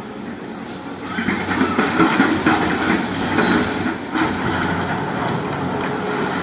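SANY SY225 crawler excavator working: its diesel engine running under hydraulic load while the steel bucket digs into broken rock, with irregular clattering and scraping of stones.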